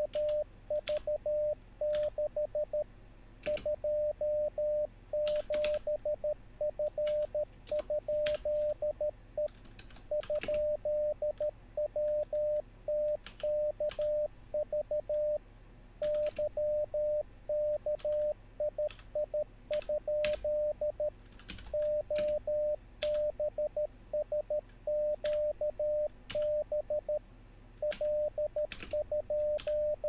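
A 600 Hz Morse code practice tone from LCWO keying random code groups of mixed letters, numbers and punctuation at 13 words per minute, with no Farnsworth spacing. The groups are separated by short pauses. Sharp mechanical keyboard key clicks come in scattered bursts as the copied characters are typed in.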